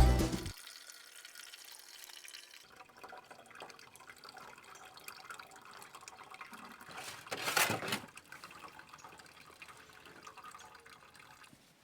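Faint water sounds, like trickling or splashing, with one louder swell of noise about seven and a half seconds in.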